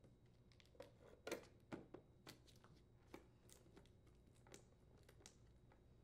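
Faint scattered clicks and crinkles of a thin clear plastic inner cover being handled and snapped into place over a refrigerator's main control board, the loudest just over a second in.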